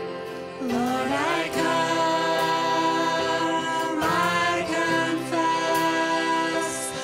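Worship song: a singing voice over sustained instrumental accompaniment, the voice coming in about a second in and pausing briefly midway.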